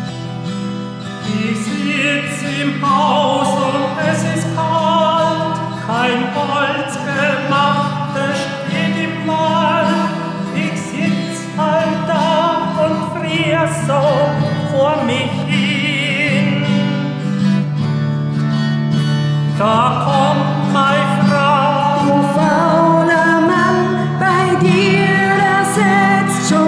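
A woman singing a song to her own strummed acoustic guitar; the guitar plays alone for the first second or so before her voice comes in, with vibrato on the held notes.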